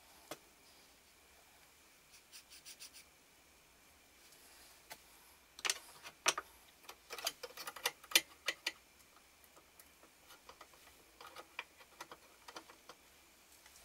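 Scattered light clicks and knocks of engraving-machine parts being handled during a strip-down: a quick run of about four ticks about two seconds in, a busier cluster in the middle, and a few more ticks near the end.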